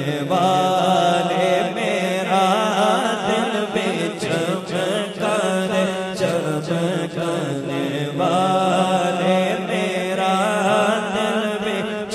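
A male reciter singing a naat unaccompanied by instruments, drawing out long wavering melodic phrases over a steady low drone. The voice swells in two long phrases, one starting about a second in and another about eight seconds in.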